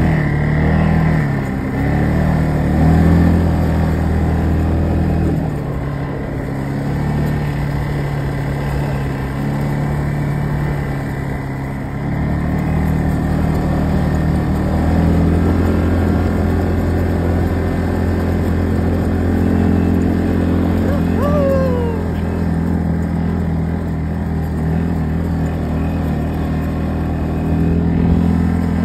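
ATV on snow tracks running under way, its engine note stepping up and down with the throttle. A short falling squeak comes about three-quarters of the way through.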